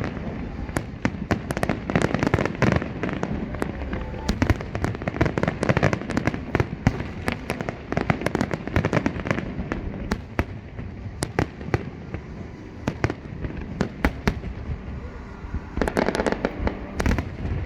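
Fireworks display: a dense run of sharp cracks and bangs going off in quick succession, thickening into a rapid flurry near the end.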